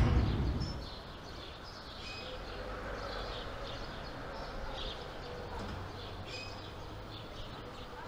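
A whoosh dies away in the first second. Then come birds chirping in short, scattered calls over a low, steady outdoor hum.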